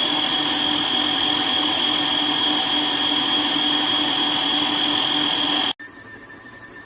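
COOKLEE 660 W stand mixer motor running at its top speed 10 with a steady high-pitched squeal, the whine it makes at its highest speeds. It is switched off about six seconds in and stops abruptly.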